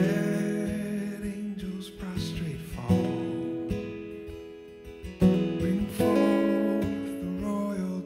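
Acoustic guitar strumming slow chords, each struck and left to ring and fade, with fresh strums about three seconds in and again about five and six seconds in.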